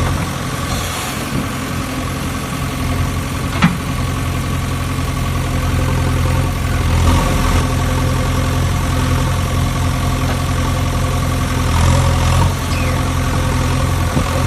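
JCB excavator's diesel engine running steadily, with one sharp knock about three and a half seconds in.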